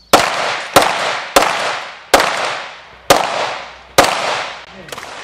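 Six pistol shots from a Glock fired in quick succession, at uneven spacing of well under a second to about a second, each crack followed by a long echoing tail across the range.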